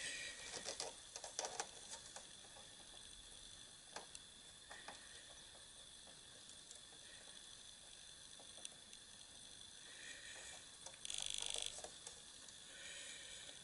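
Faint scratching and small clicks of a cotton bud rubbing over a laserdisc player's laser pickup lens and its plastic housing, with a short, harder scrubbing burst a little after the middle of the second half.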